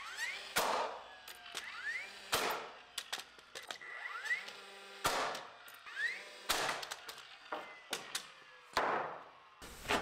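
DeWalt cordless battery-powered framing nailer driving nails into 2x4 wood studs: about five sharp shots spaced a second or two apart, several of them preceded by a short rising whine as the tool's motor spins up.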